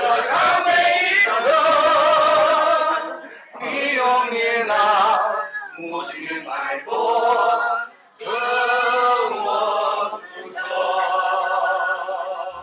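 A mixed group of men and women singing together unaccompanied, in sung phrases broken by two short pauses.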